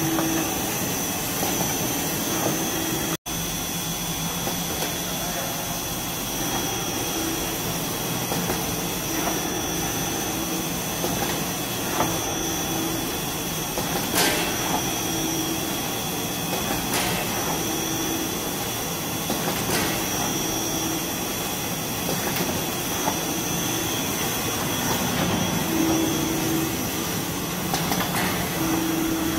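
Automatic band-saw tissue-roll cutting machine running: a steady mechanical drone with a short low tone recurring every couple of seconds and light clicks now and then. The sound drops out for an instant about three seconds in.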